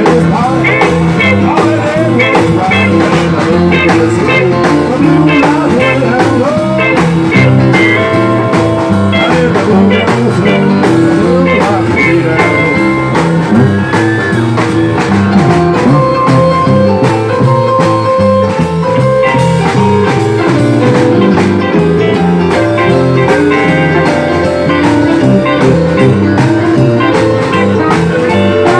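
Live band playing an upbeat blues boogie-woogie number: electric guitar over a steady drum beat, with some singing.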